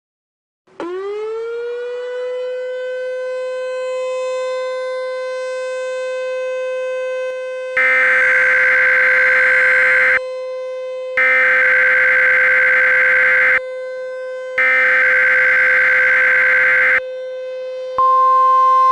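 A siren winds up quickly and holds a steady wail. Over it come three Emergency Alert System SAME header data bursts, each about two and a half seconds with a second's gap. About a second before the end, a single-pitch 1050 Hz weather-radio attention tone begins.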